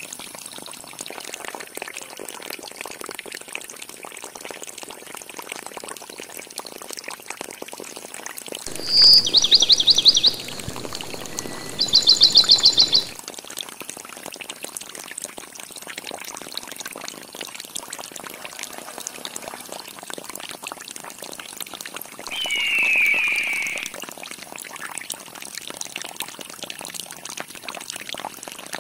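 Thin stream of water from a small homemade pump's pipe pouring into a shallow sand pond, a steady trickling splash. Two short, high, rapid chirping trills about 9 and 12 seconds in, and a shorter chirp about 23 seconds in, are louder than the water.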